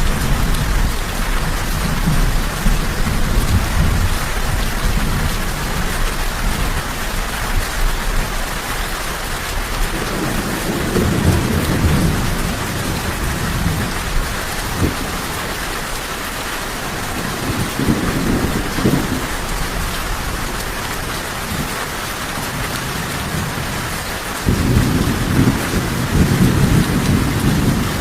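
Steady rain falling, with low rolls of thunder swelling and fading several times: at the start, about ten seconds in, again a little later, and a louder roll beginning near the end.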